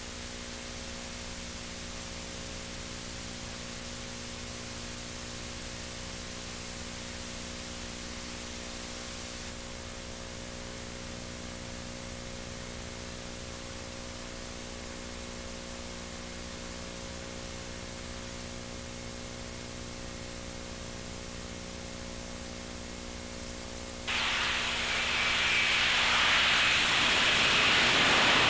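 Steady electrical hum with several fixed low tones over tape hiss, from a silent stretch of an old VHS recording. About 24 seconds in, a broad rushing noise of jet aircraft comes in and grows louder.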